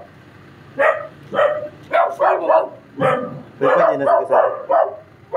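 A dog barking and yelping in about a dozen short, loud calls, most of them close together in the middle.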